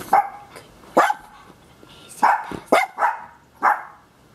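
Small pet dogs giving short, excited barks and yips, about seven in all, with a quick run of them a little past the middle.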